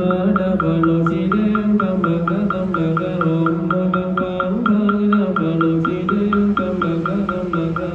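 Vietnamese funeral ritual music: a quick, steady clacking beat of about five strikes a second runs under a low, wavering melodic line that shifts in pitch.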